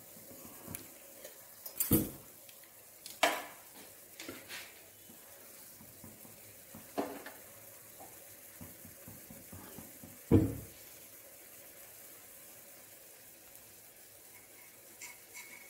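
Metal kitchen utensils clinking and knocking: spoons and steel plates handled beside the stove and against the pan. There are about half a dozen scattered knocks, the loudest about two seconds in and about ten seconds in, over a faint sizzle of batter frying in oil in a paniyaram pan.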